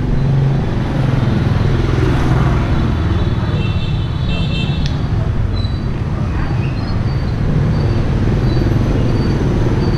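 Steady low rumble of motor scooter traffic. A brief high-pitched tone comes about four seconds in.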